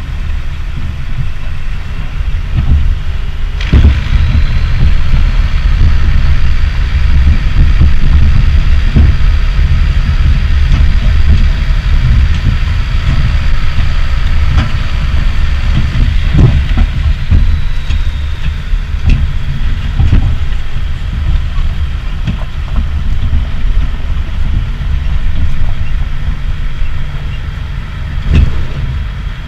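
International Harvester tractor's engine running steadily as it drives across a rough, wet field, with a low rumble throughout. A thin high whine starts with a knock about four seconds in and fades away a little past halfway. Scattered knocks and rattles come as it goes over the bumps.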